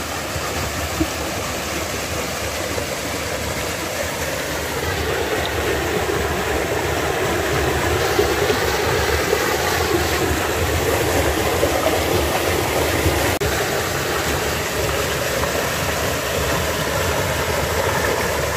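Small waterfall pouring into a rock pool, heard from close by: a steady rush and splash of falling water that grows a little louder about four seconds in.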